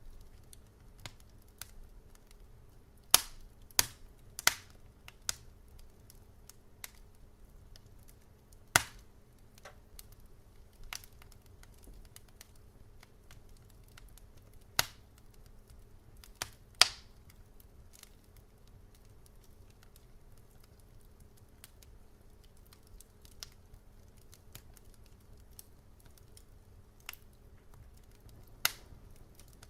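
Wood fire crackling in a fireplace: irregular sharp snaps and pops, a handful much louder than the rest, over a faint steady low hum.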